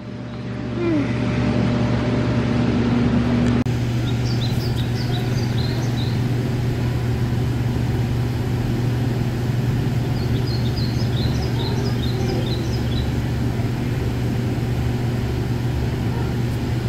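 Steady low hum of indoor machinery, with two short runs of quick high chirps: a few seconds in and again just past the middle.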